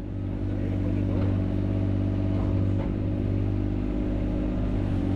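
Mini excavator engine running steadily under work.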